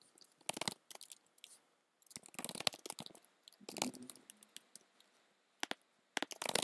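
A computer keyboard being typed on, in several quick runs of key clicks with short pauses between them.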